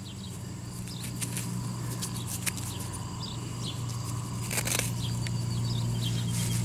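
Fingers handling and rubbing soil off a dug-up half of a silver-plated metal bell: scattered short scratches and clicks, with a brief rustle about four and a half seconds in. A steady low hum runs underneath and grows slightly louder.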